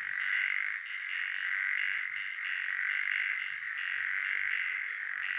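Night-to-dawn chorus of toads and crickets calling together: a dense, steady mass of calls with short calls repeating over it.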